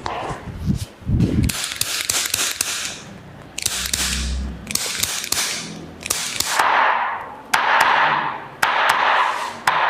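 Spinal joints popping during a chiropractic adjustment: a series of sharp cracks in several clusters. From about six and a half seconds in, they come with louder swishing bursts roughly once a second.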